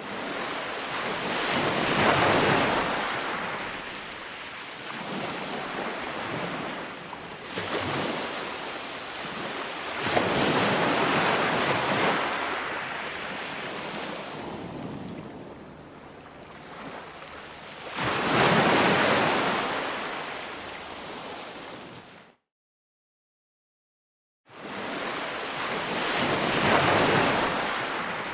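Ocean surf: waves breaking in swells roughly every eight seconds, each rising to a loud rush and then washing back. About two-thirds of the way through, the sound cuts out completely for about two seconds, then returns.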